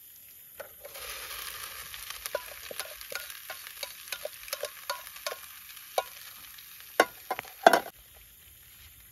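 Boiled noodles tipped into a hot pan of frying vegetables start sizzling about a second in, with many clicks and scrapes of a spatula as they are stirred. A sharp clack about seven seconds in and a louder clatter just before the sizzling dies down.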